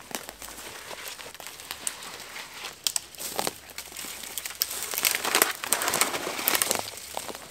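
Footsteps in rubber boots crunching and crackling through dry leaf litter and twigs, with branches rustling. They grow louder about five seconds in as the walker comes close.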